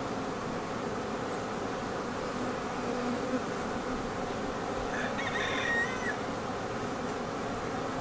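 A honey bee colony buzzing: the steady, dense hum of many worker bees at a Flow Hive super's viewing window, the sound of a strong, populous colony. A brief higher chirp cuts in about five seconds in.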